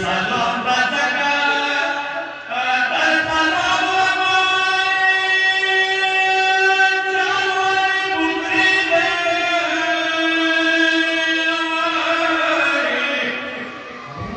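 Shehnai-type reed pipes playing long held notes together, with a short dip about two seconds in and another near the end.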